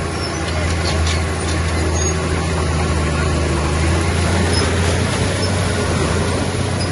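Diesel engine of heavy earthmoving machinery running steadily with a low, even drone, and a few faint clicks about a second or two in.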